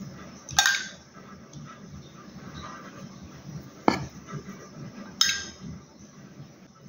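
Metal spoon clinking against a glass measuring jug while scooping out syrup: three sharp clinks, about half a second in, just before four seconds and again a second later, with quiet handling between them.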